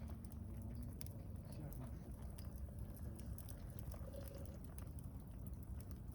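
Wood campfire crackling with scattered small pops over a steady low rumble.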